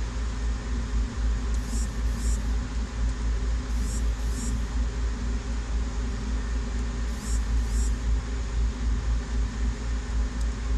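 Steady low hum and rumble of running machinery, with three pairs of short high-pitched chirps about two, four and seven seconds in.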